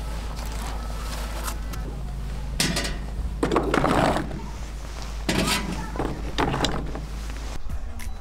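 Indistinct voices in a few short bursts over a low steady hum.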